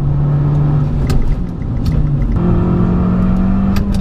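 Abarth 695 Biposto's 1.4-litre turbocharged four-cylinder engine running hard, heard inside the cabin, its note dropping at the start and stepping back up a little past halfway as gears change. Sharp clicks and clunks from the dog ring gearbox come about a second in and again near the end.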